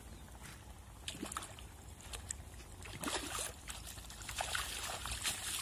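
Water sloshing and splashing in short, scattered splashes, getting busier about three seconds in.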